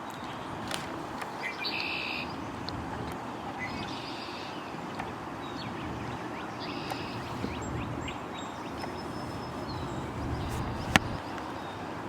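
Birds calling a few times, short patterned calls over steady outdoor background noise, with one sharp click near the end.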